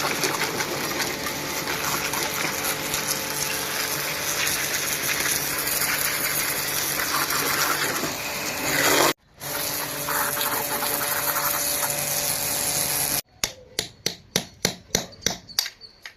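A workshop power tool or machine running steadily with a hiss and a whir, broken by two abrupt cuts. Near the end it gives way to a run of sharp clicks or taps, about four a second.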